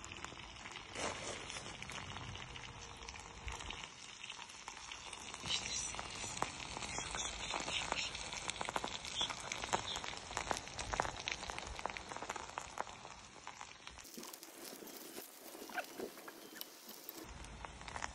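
Dense, faint crackling and popping from a freshly uncovered clay pot of buğlama, the hot stew of meat, tomatoes and peppers still sizzling and bubbling.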